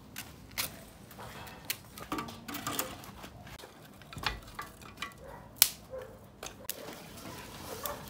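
Sticks of firewood knocking and clattering against a small metal barrel stove as the fire is laid and lit: scattered sharp knocks several times over.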